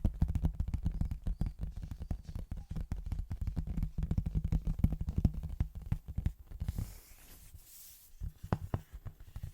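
Fingertips rapidly tapping and scratching on a small paper notepad: a dense run of soft thuds that thins out about two-thirds of the way through into a brief hiss and a few single taps.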